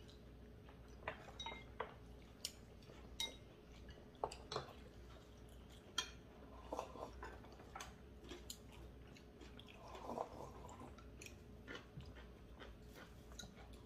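Quiet eating at a table: soft chewing, with scattered light clicks and clinks of chopsticks and spoons against ceramic bowls.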